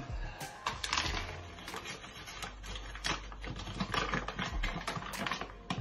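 Paper bag of gluten-free flour being handled and opened, crinkling and rustling with many short crackles.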